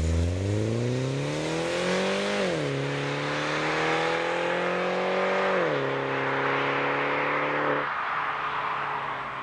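Mini Cooper Clubman S's turbocharged 1.6-litre four-cylinder accelerating hard away, its exhaust note climbing with the revs and dropping at two upshifts, about two and a half and five and a half seconds in. Near the end the engine note cuts off as the driver lifts, and the car's sound fades with distance.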